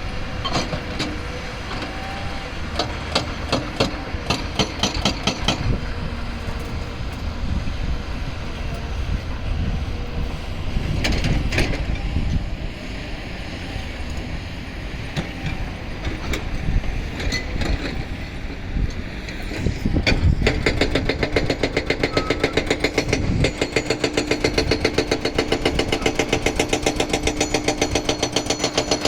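Continuous engine and vehicle noise with scattered clicks and knocks. About two-thirds of the way through, an engine takes over, running with a fast, even pulsing beat.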